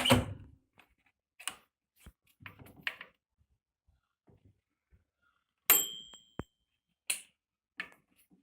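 A series of separate clicks and knocks from hard parts being handled, about seven in all, the loudest right at the start; one knock about six seconds in sets off a short metallic ping.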